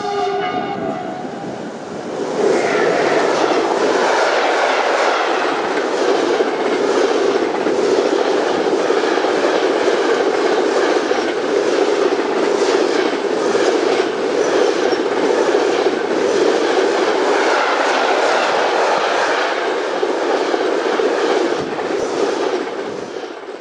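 Container freight train passing close by: a brief horn from the locomotive as it arrives, then a steady rumble and rattle of the wagons with rhythmic clickety-clack of the wheels over the rail joints. It dies away near the end.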